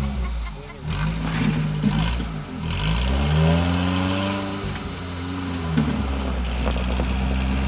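Stock Suzuki Samurai's four-cylinder engine working under load as it crawls over rock ledges. It revs up about three seconds in, holds the higher pitch, then drops back near six seconds.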